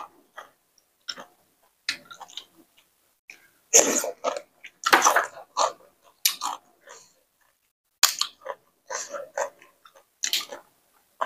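A person chewing a mouthful of spicy papaya salad, with irregular wet chewing sounds in short bursts and brief pauses between them.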